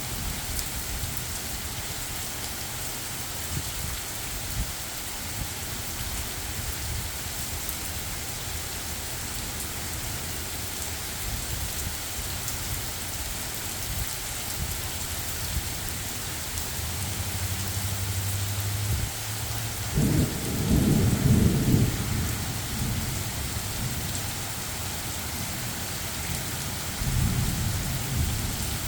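Steady rain from Hurricane Debby falling hard, a constant hiss. Low rumbles of thunder build around two-thirds of the way in, loudest for a couple of seconds, with another shorter rumble near the end.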